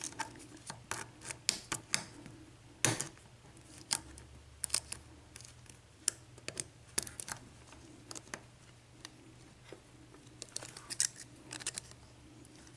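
Lock pick and tension wrench working inside the keyway of a 6-pin Brinks brass padlock: small, irregular metallic clicks and scrapes as the pins are probed and set.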